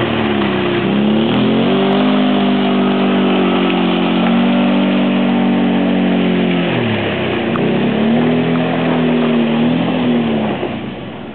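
Vehicle engine running on a dirt track, climbing in pitch, holding steady, then easing off and picking up again; it drops away and fades near the end.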